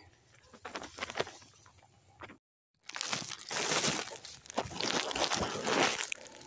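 Rice stalks and leaves rustling and crackling as they brush against a person and the phone while pushing through chest-high rice. The sound cuts out for a moment about two and a half seconds in, then comes back denser and louder.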